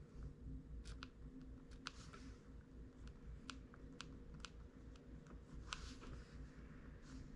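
Light, sharp clicks at irregular intervals, about nine, over a faint steady low hum.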